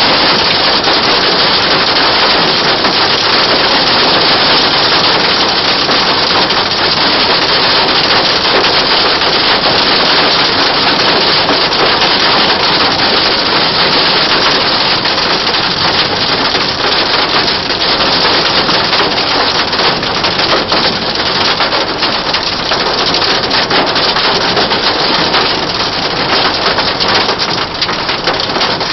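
Heavy rain and hail pelting a car's roof and windshield, heard from inside the cabin as a loud, dense hiss of countless tiny impacts.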